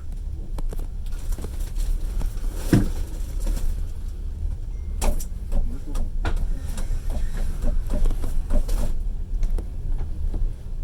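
Passenger train carriage in motion heard from inside: a steady low running rumble with irregular knocks and rattles, the loudest knock about three seconds in.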